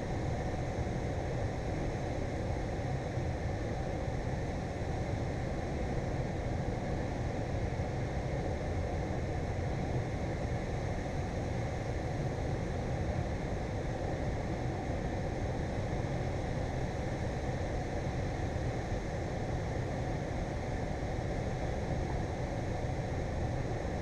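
Steady low rushing of water pouring out of a dam's outlet into the tailwater, unbroken throughout.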